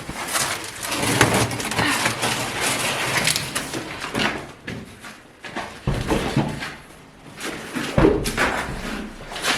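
Packaging being pulled and handled off a new chest freezer: irregular rustling and scraping of plastic wrap and polystyrene, with two heavier thumps about six and eight seconds in.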